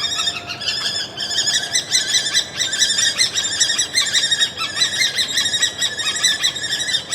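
Common kestrel calling: a fast, unbroken series of short, high repeated notes, several a second.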